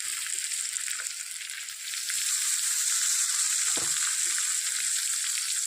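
Pork with potatoes and peas sizzling in its own rendered fat in a kadai, a steady hiss that grows louder about two seconds in, with a light knock near the middle.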